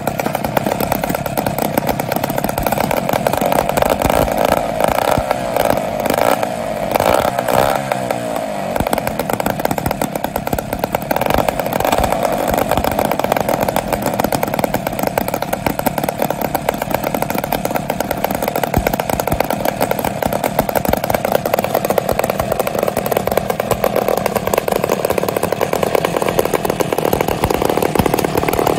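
Twin West Bend 580 five-port two-stroke kart engines running together just after a cold start, a dense rapid buzz. Several seconds in, the pitch swings up and down a few times as the engines are revved, then settles back to a steady run.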